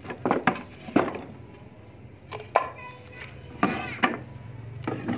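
Scrap wood offcuts clacking and knocking against each other as they are shifted and picked through in a pile, with several sharp knocks. A short high-pitched voice calls out once near the middle.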